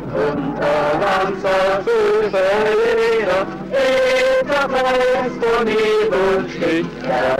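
Male voices singing a song, with acoustic guitars played along, one of them a 12-string.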